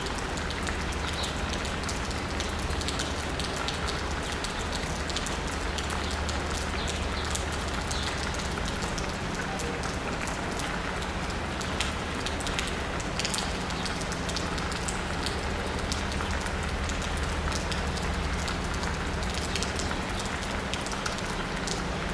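Steady rain pattering on pavement and a roof, with many separate drop ticks over an even hiss. A steady low hum runs underneath.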